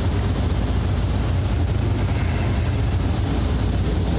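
A steady low rumble with an even hiss above it, unchanging and with no distinct events.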